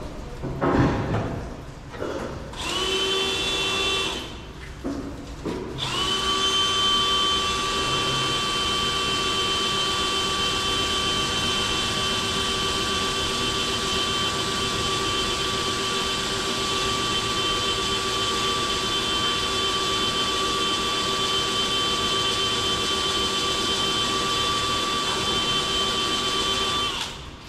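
Power drill boring a hole in the stainless steel spreader body, a steady whine under load. A short first run is followed by one long unbroken run that stops near the end.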